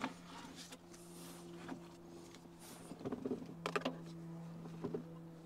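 Faint clicks and rustling from handling and moving about, picked up by a clip-on microphone, with a cluster of clicks a little past the middle. A faint steady hum sits under them throughout.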